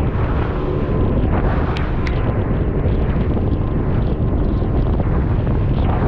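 Heavy wind buffeting the microphone on an aluminium Stabicraft 2050 running fast through rough, wind-blown chop, with the hull knocking on waves and spray coming off the bow. The noise is loud and steady throughout.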